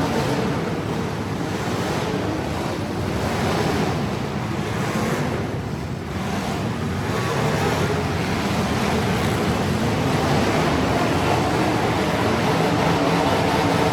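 Truck engine running under a heavy rush of wind noise on the microphone.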